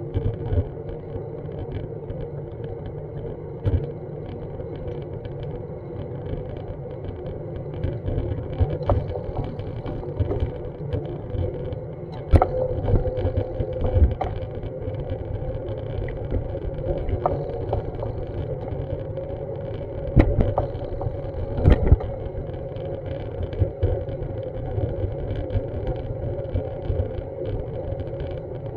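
Street ambience: a steady low rumble of traffic with a faint steady hum, broken by scattered short clicks and knocks, the loudest about midway and about two-thirds of the way through.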